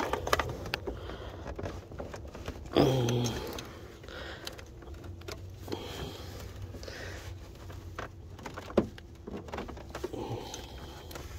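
Scattered clicks and knocks of a plastic electrical connector being worked loose by hand from the throttle body of a Volkswagen CC's 2.0 TSI engine, with one sharp click near the end as it comes free.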